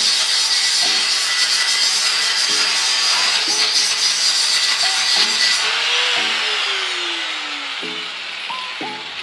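Electric angle grinder grinding steel on a welded metal gate frame, then switched off about five and a half seconds in and spinning down with a falling whine.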